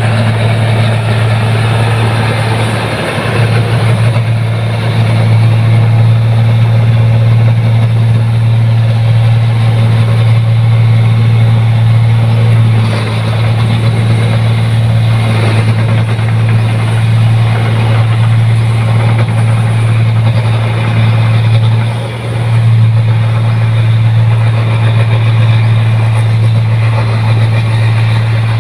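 Rice combine harvester's engine running steadily under load, a loud constant low hum with mechanical noise over it, briefly dipping twice, a few seconds in and about three quarters of the way through.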